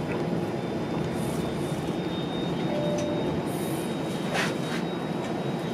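A Toronto streetcar, a Bombardier Flexity Outlook, heard from inside as it runs along its track: a steady rumble of wheels and running gear with a thin, high whine held over it and a brief clatter about four seconds in.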